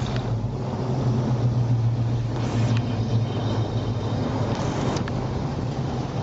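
Ford Mustang engines idling with a steady low rumble, with two brief noisy bursts about two and a half and four and a half seconds in.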